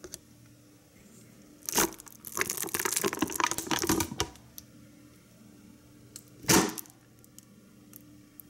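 Plastic membrane of a toy air vortex cannon crinkling and crackling as it is handled and pulled back, with a sharp crack at the start of the handling. A single loud pop-whoosh comes a few seconds later, as the cannon is fired.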